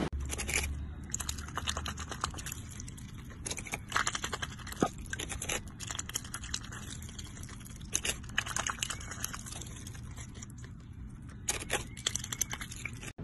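A white domestic duck biting and tearing at romaine lettuce leaves, crisp crunching in quick clusters of snaps with short pauses between.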